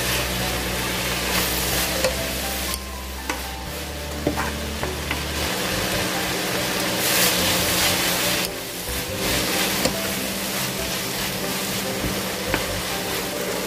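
Fish cake, cabbage and carrot strips sizzling in an oiled frying pan as they are stirred and tossed with a wooden spatula, with a few sharp clicks of the spatula against the pan.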